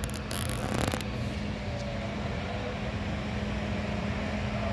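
Steady low mechanical hum with one constant droning tone, and a brief hiss about half a second in.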